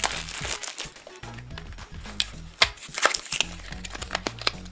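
Clear plastic wrapper crinkling and crackling in irregular bursts as it is pulled off a small toy basket by hand, over quiet background music.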